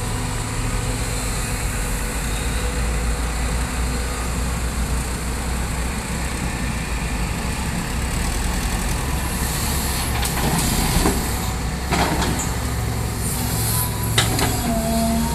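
Caterpillar crawler excavator's diesel engine running steadily under load as it digs and swings soil. A few sharp knocks and clatters in the second half come from the bucket working and earth and rocks dropping into a steel dump truck bed.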